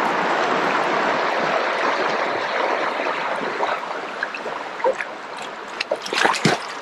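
Creek water rushing steadily through a log jam. About six seconds in, a few sharp splashes as a dog drops off the log into the water.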